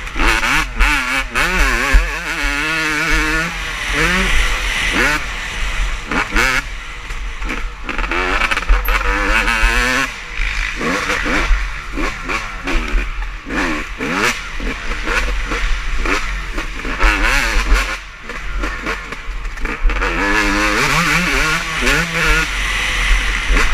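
Motocross bikes racing, several engines revving up and down as the riders work the throttle through the gears, the pitch repeatedly rising and dropping. A steady low rumble sits underneath.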